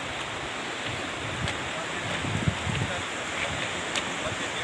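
Steady rushing noise of a muddy river in flood flowing past the bund, mixed with wind on the microphone that gusts briefly around the middle, plus a few faint clicks.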